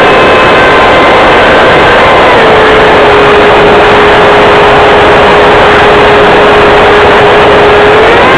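The 70mm electric ducted fan of a radio-controlled F-4 Phantom jet whines over heavy wind rush, picked up by a keychain camera on board the model. About two seconds in, the whine drops in pitch as the throttle comes back. It holds steady, then rises again near the end.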